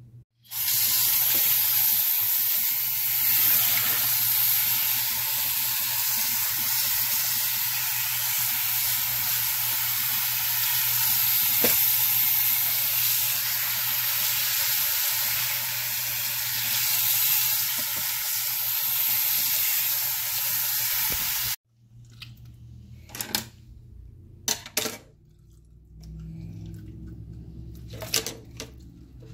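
Tap water running steadily into a kitchen sink and over a fish being rinsed by hand, stopping abruptly about 21 seconds in. After that come a few sharp snips of kitchen scissors.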